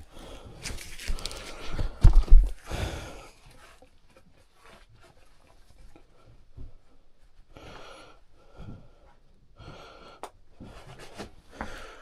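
A person breathing hard, with scuffing and a few heavy knocks in the first three seconds, the loudest about two seconds in, then quieter breaths every second or two.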